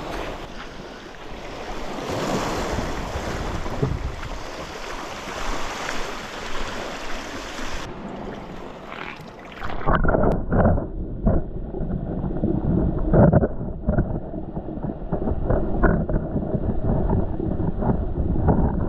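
Wind on the microphone and sea waves washing on a shingle beach. About ten seconds in the sound turns muffled and dull as the camera goes underwater in a rock pool, with water sloshing and several dull knocks against it.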